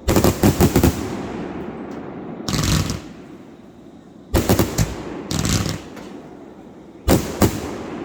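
Fireworks going off in about five bursts, each a quick string of sharp cracks, with the sound fading away between bursts.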